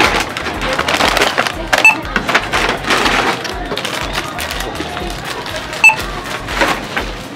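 A handheld barcode scanner beeps twice, about four seconds apart, as the cashier scans items. Packages rustle and clatter in a plastic basket, over background chatter and music.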